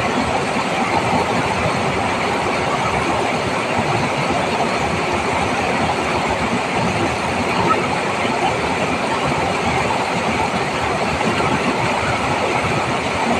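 A swollen, muddy river rushing over a rock ledge: a steady, loud rush of white water.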